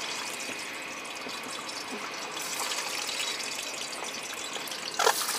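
Whole boiled eggs frying in smoking-hot oil in an iron kadai, sizzling with many fine crackling pops. The crackle grows busier about two seconds in, with a brief louder burst near the end.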